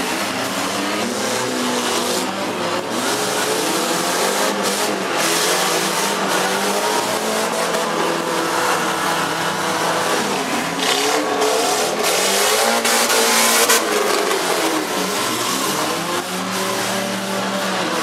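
Several six- and four-cylinder demolition-derby cars' engines running and revving together, their pitches rising and falling, with stretches of harsh noise, the longest about two-thirds of the way through.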